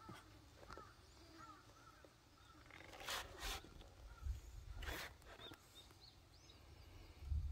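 Faint outdoor ambience with a string of short, high chirping calls from small animals or birds. Brief rustling noises come twice about three seconds in and once about five seconds in.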